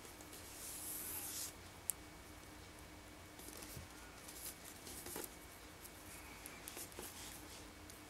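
Faint rustling and light ticks of fingers handling macramé cords on a paper pattern, with one sharp click just before two seconds in.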